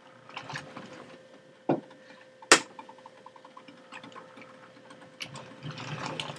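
HO-scale model train rolling slowly on its track: a faint steady motor hum with scattered small clicks and ticks. There is a sharp knock about two and a half seconds in and a quick run of even ticks just after.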